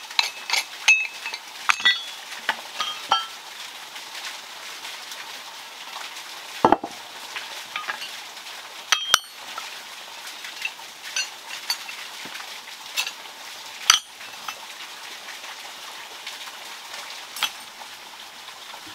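Pieces of scrap iron and metal tools clinking and knocking together as they are handled and laid down: scattered light clinks, some briefly ringing, with a few louder knocks, over a steady faint hiss.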